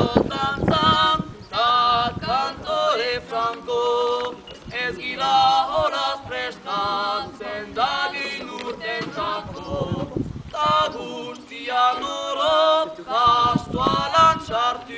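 A group of voices singing a cappella in phrases, with no instruments.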